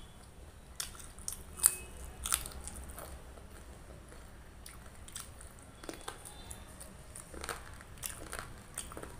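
Close-miked eating: several sharp, crunchy bites in the first two and a half seconds, one of them loud, then chewing with scattered smaller crunches.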